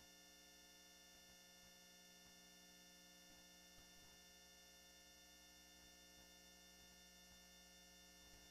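Near silence: a faint, steady electrical hum with no other sound.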